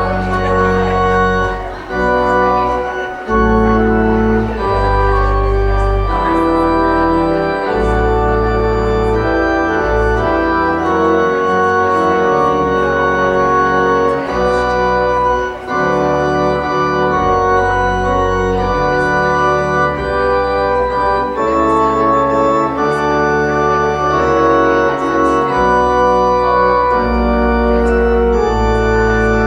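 Organ music: held chords that change every second or two over a deep bass line.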